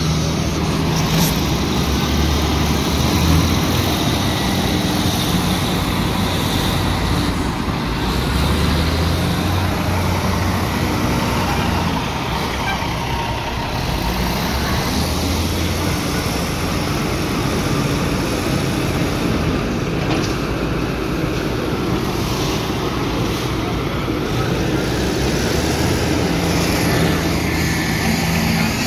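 Heavy diesel dump-truck engines running and idling, a steady low drone whose engine speed shifts up and down several times.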